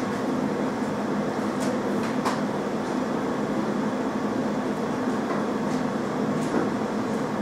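Jewellery laser welding machine running just after power-on: a steady hum, with a few faint clicks in the first couple of seconds.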